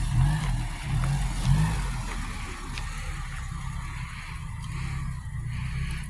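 Honda Civic Si's K20Z3 2.0-litre four-cylinder engine running at low revs as the car rolls slowly and turns in. Its pitch wavers a little over the first couple of seconds, then holds steady.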